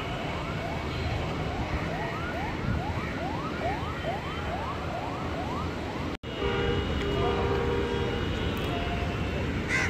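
Diesel locomotive approaching with a steady low rumble, over it a repeated short rising chirp about twice a second, like a siren's yelp. After a sudden break about six seconds in, the rumble goes on with a few steady held tones above it.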